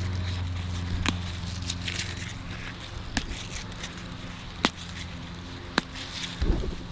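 Lettuce being picked by hand: a few sharp, separate snaps a second or two apart as leaves are cut or broken off. A low steady hum fades out about halfway through.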